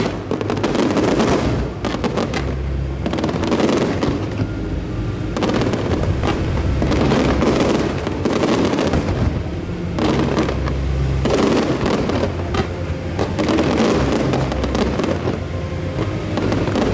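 Aerial fireworks shells bursting in quick succession, a continuous barrage of bangs.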